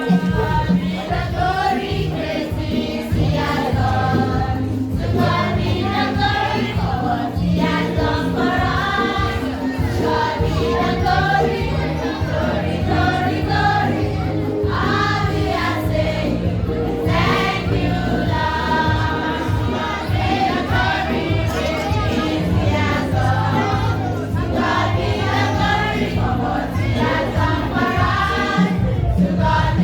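A group singing a Christian song together over a steady instrumental bass accompaniment, going on without a break.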